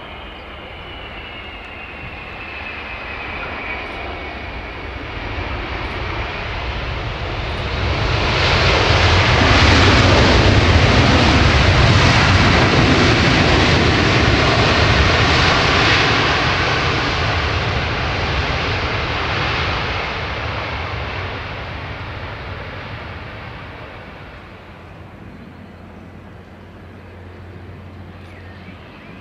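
Aircraft engines passing close by: a whine falls in pitch over the first few seconds, then the engine noise swells to a loud peak about ten seconds in and slowly fades away.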